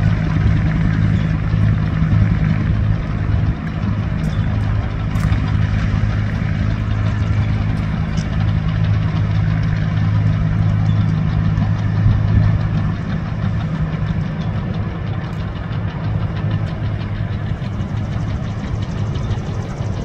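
Diesel engines of a CAT bulldozer and a Komatsu excavator running steadily with a low, even drone, with a few faint clicks between about four and eight seconds in.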